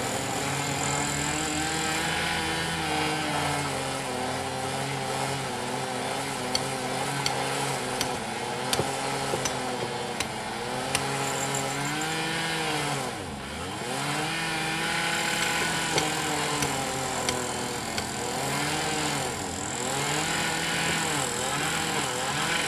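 Engine-driven track-repair machinery running, its pitch dipping and recovering several times as if bogging under load, with scattered sharp knocks.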